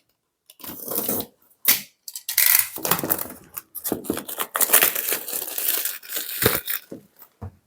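Phone retail box being unboxed: packaging tearing and cardboard and plastic crinkling and scraping in irregular stretches, with a few sharp knocks of the box near the end.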